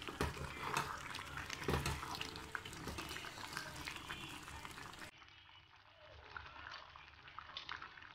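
Wooden spoon stirring thick, saucy cocoyam porridge in a pot, with wet clicks and squelches. About five seconds in the sound drops and turns quieter, leaving soft scattered bubbling from the simmering pot.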